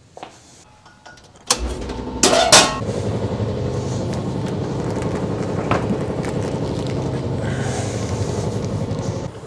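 Air compressor starting up about a second and a half in, with two loud noisy bursts just after it kicks on, then running steadily as it builds pressure.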